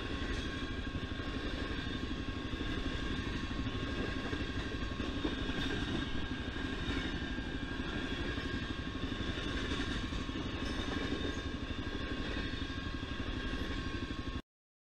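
Freight train of tank cars rolling past a level crossing, a steady rumble and clatter of wheels on the rails, with a Honda CRF250L's single-cylinder engine idling and a steady high ringing tone. The sound cuts off suddenly near the end.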